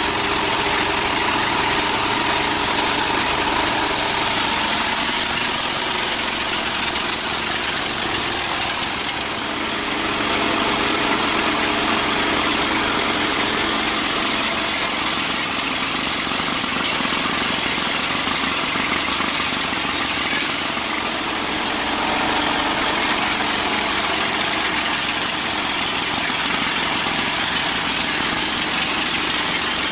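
Sawmill machinery running with a steady, loud mechanical din, easing off slightly twice.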